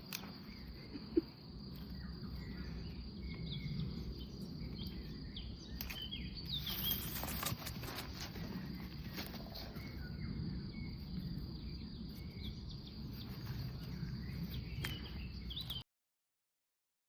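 Outdoor rural ambience: small birds chirp now and then over a steady high insect drone and a low, even background rumble. It cuts off suddenly about a second before the end.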